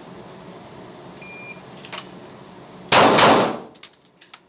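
A shot-timer app's start beep, then about a second and a half later a single very loud 9mm pistol shot from a Taurus G3C, with a short ringing echo of the indoor range behind it, followed by a few faint clicks.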